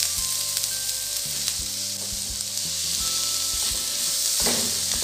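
Diced onion, tomato and green bell pepper sizzling in oil in a frying pan while a spatula stirs them around.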